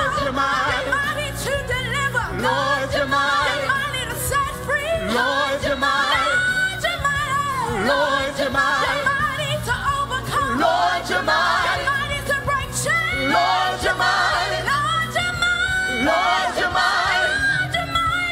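Live gospel singing: lead vocalists singing with voices sliding up and down in pitch, over backing singers and a band accompaniment with low held bass notes.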